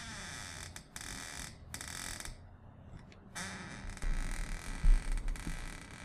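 Door sound effects: several short takes of a door moving, cut one after another, then a run of low thumps about four seconds in, the loudest near five seconds.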